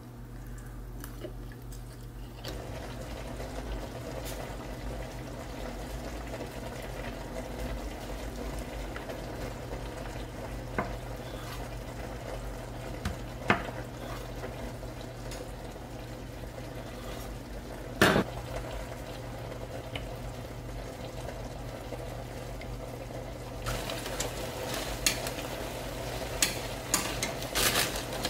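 Kitchen food-prep sounds over a steady low hum and hiss. A few sharp knocks come through, one of them a knife meeting a wooden cutting board as tofu is sliced. Near the end there is a run of clicks and rustling as salad leaves are handled over a metal mesh strainer.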